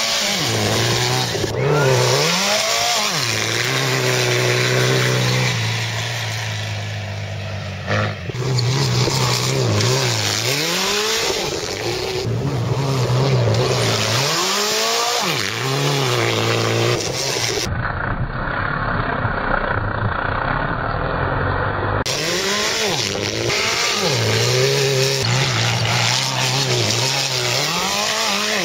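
Sand rail's engine revving hard, its pitch climbing and falling over and over as it runs at and launches off a sand hump. It sounds duller for a few seconds just past the middle.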